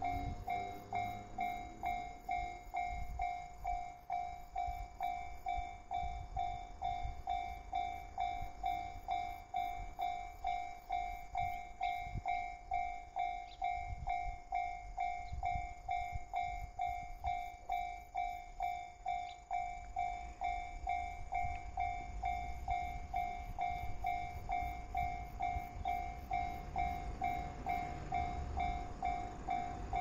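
Japanese level-crossing warning bell ringing steadily, an electronic ding about three times every two seconds, signalling that a train is approaching and the crossing is closed. A low rumble runs underneath and grows slightly near the end.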